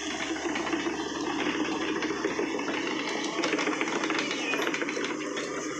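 Heavy earthmoving machine's diesel engine running steadily, a dense, even mechanical noise.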